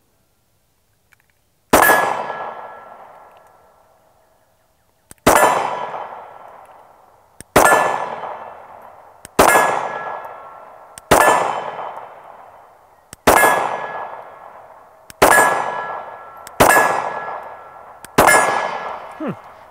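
Glock 48 9mm pistol fired nine times, slow and steady, with a shot every two seconds or so. Each shot is followed at once by a steel plate target ringing, and the ring fades out over about two seconds.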